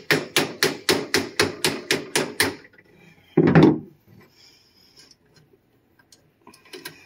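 Plastic hammer tapping quickly and evenly, about four blows a second, driving a compression fitting onto the end of an aluminum fuel line that sticks because the cut end was not deburred. The tapping stops about two and a half seconds in, and a single louder thump follows about a second later.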